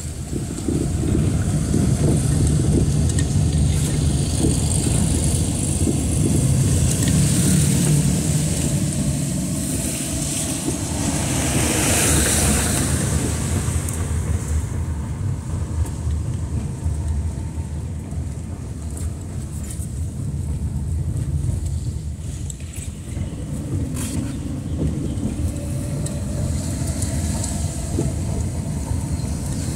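Car engine and tyre noise heard from inside the cabin while driving on wet pavement: a steady low rumble under tyre hiss, with a louder swell of hiss about twelve seconds in.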